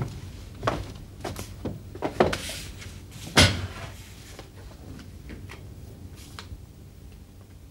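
Handling sounds at a wooden desk: a string of short knocks and clicks, with a brief scrape about two and a half seconds in and the loudest knock about a second later, then a few lighter clicks.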